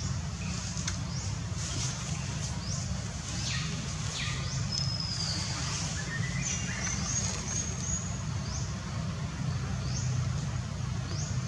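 Small birds chirping in short, high, falling notes over and over, with one longer whistled note about six seconds in, over a steady low rumble.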